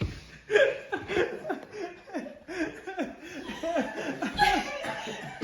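Men laughing, a long run of short repeated ha-ha sounds.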